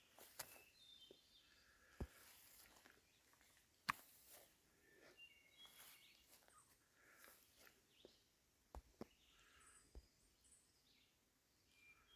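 Near silence in woodland: faint, scattered bird chirps, with a few sharp clicks or knocks.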